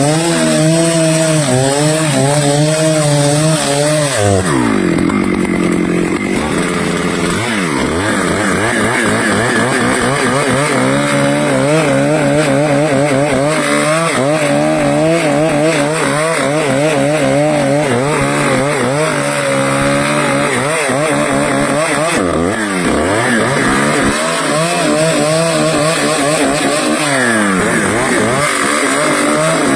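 Stihl two-stroke chainsaw running at high revs while cutting teak wood, its pitch wavering as the chain bites. The revs drop sharply and climb back several times, about five seconds in, around the middle and again near the end.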